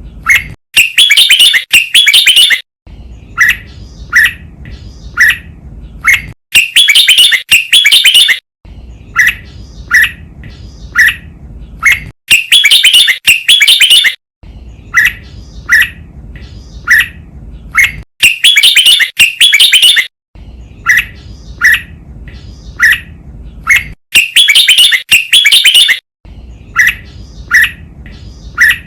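Red-whiskered bulbul singing a training song. About every six seconds a loud, rapid phrase lasting about two seconds is followed by five or so short separate notes, over a steady low hiss.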